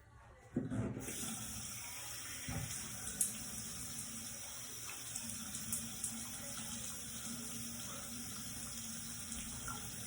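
Running water, turned on suddenly about half a second in and flowing steadily, with a couple of light knocks.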